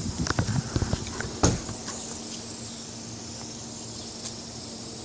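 A handful of sharp clicks and knocks in the first two seconds, the loudest about one and a half seconds in, from a fidget spinner being handled and set spinning. After that only a steady faint hum and a high hiss remain.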